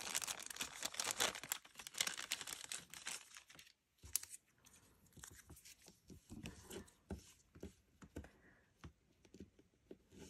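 Thin clear plastic sheet crinkling and crackling as it is handled, for about the first four seconds. Then faint scattered taps of tweezers and fingers on the crafting mat.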